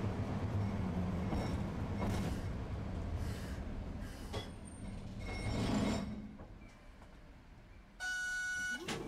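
Tosaden streetcar running with a steady low hum and rumble that fades away after about six seconds. About eight seconds in, a steady electronic tone sounds for about a second and cuts off.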